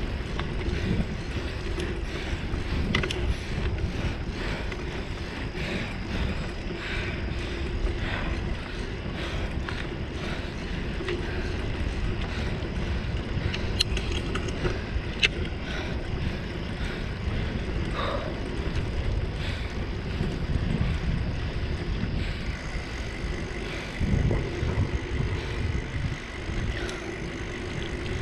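Wind rushing over the microphone and tyres rumbling on asphalt as a bicycle rolls along a paved path, with a few sharp ticks.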